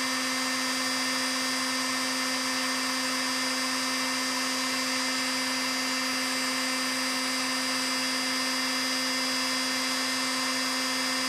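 Heat gun running steadily: an even electric blower whir with a constant hum.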